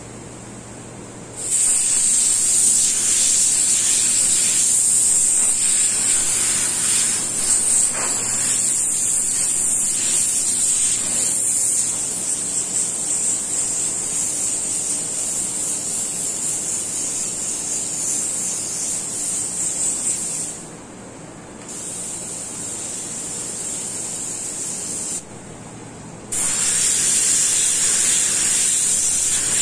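Compressed air hissing steadily from a paint spray gun as paint is sprayed, stopping briefly twice in the last third, with a low steady hum underneath.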